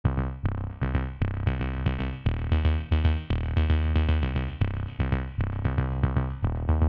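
Background electronic music with a drum-machine beat and synthesizer, starting abruptly.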